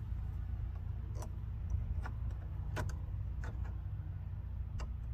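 Scattered small clicks and taps of plastic and metal pickup-truck door parts being handled and fitted as the door lock is put back in, over a steady low hum.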